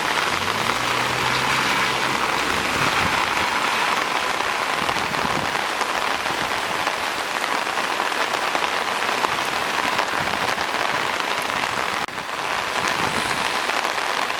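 Heavy tropical rain pouring steadily, a dense hiss of rain falling on surfaces. A low hum sits under it for the first few seconds, and the rain noise dips briefly about twelve seconds in.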